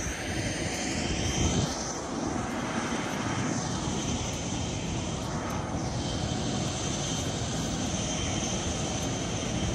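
Turboprop aircraft engines running steadily at an airport apron: a constant rush of engine noise with a faint high whine. Between about two and six seconds in, a slowly sweeping, hollow swish moves through the noise.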